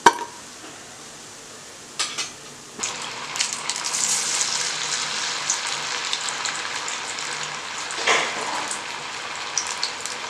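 Mutton masala vadas deep-frying in hot oil in a steel kadai: after a sharp click at the start and a short splash about two seconds in, the oil breaks into steady, vigorous sizzling.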